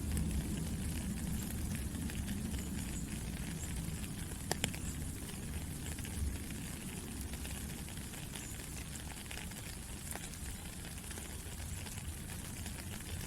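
Steady rain falling, with scattered individual drops ticking out sharply, the clearest about four and a half seconds in.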